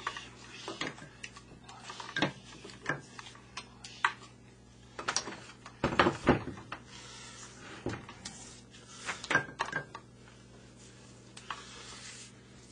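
Scattered knocks and clatters of a jigsaw being handled and set down on a plywood board on a workbench, the loudest cluster about six seconds in; the saw's motor is not running.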